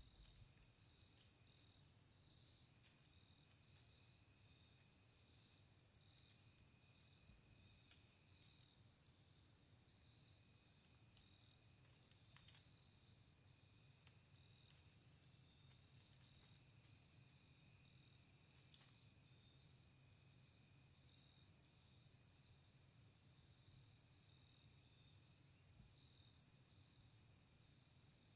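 A steady, high-pitched chorus of crickets, swelling and fading slightly, with a fainter, lower insect trill alongside that comes and goes.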